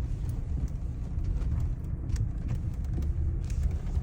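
Tyre and road rumble inside a Hyundai Elantra MD driving over a rough, bumpy road, with faint small rattles. No loud knock comes from under the steering column, because the loosened bolt of the steering shaft's universal joint, which caused it, has been tightened.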